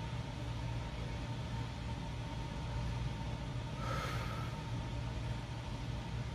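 Steady hum of a room air-conditioning unit, with one short, forceful exhale through pursed lips about four seconds in, from a bodybuilder straining into a most-muscular pose.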